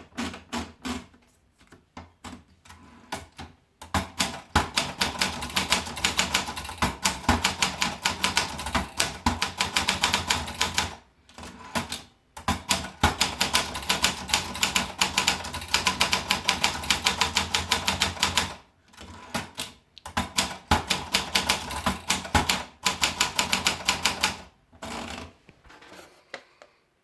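Olympia Splendid 33 portable manual typewriter being typed on: a few scattered keystrokes, then fast runs of sharp key and typebar clacks broken by several short pauses, thinning out near the end.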